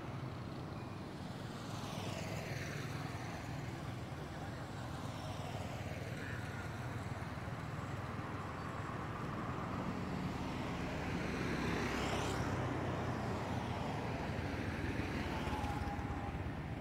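Road traffic going by: a steady hum of passing vehicles, with cars and motorbikes swelling as they pass, the loudest about twelve seconds in.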